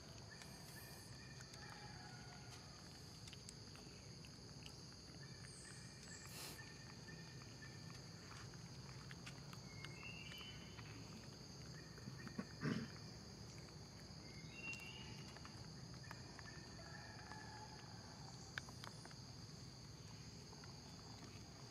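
Faint forest background: insects droning steadily at a high pitch, a few short bird chirps, and one brief thump about twelve seconds in.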